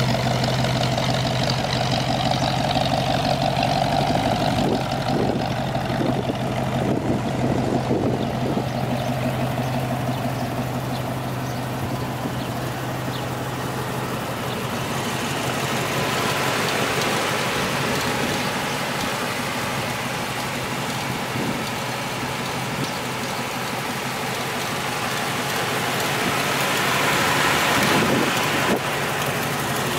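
Ramjet 350 small-block V8 idling steadily. About halfway through, its deep hum drops away and a hissier engine sound remains.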